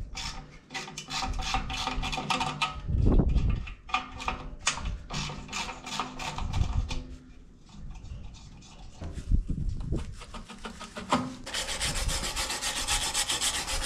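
A hand ratchet clicks on the rusty exhaust fittings of a Ferguson TEF20 as the busted exhaust pipe is taken off, with knocks of the loosened steel pipe. Near the end, a fast, steady scraping of metal on metal begins.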